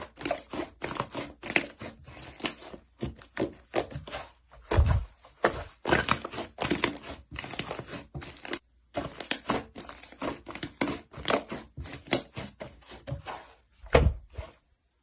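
Slime being squeezed and pressed by hand: a fast, irregular run of small clicks and crackles, with two deeper thuds, one about five seconds in and one near the end.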